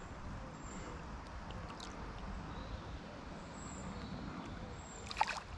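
Steady noise of the flowing river, with uneven low rumble underneath, and one short sharp rattle about five seconds in.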